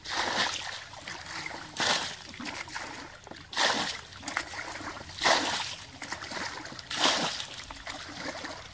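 Water splashing in a shallow stream: five splashes at an even pace, about one every second and a half to two seconds, over a low trickle.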